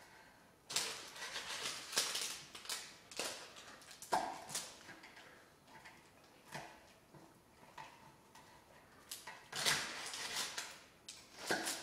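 Kitchen knife cutting through a baked muesli bar slab on a wooden chopping board: irregular sawing and scraping strokes of the blade, with a few sharp knocks where it meets the board.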